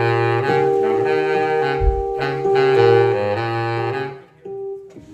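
Live band's horn section playing held chords over bass and drums, with a kick-drum thump about two seconds in. The phrase breaks off a little past four seconds.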